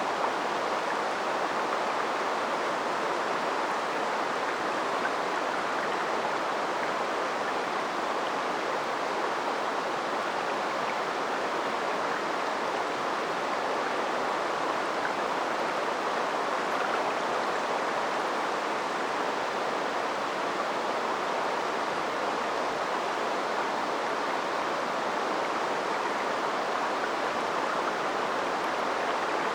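River water flowing and rushing steadily over its bed, a continuous even sound that does not change.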